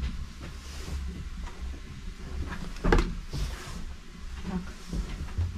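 A steady low rumble with light clicks, and one sharp knock about three seconds in.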